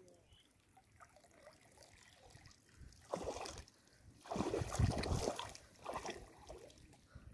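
Water splashing and sloshing as a bamboo-framed push net is lifted out of shallow floodwater and shoved back in. Quiet at first, then a few uneven splashes from about three seconds in, the biggest about four to five seconds in.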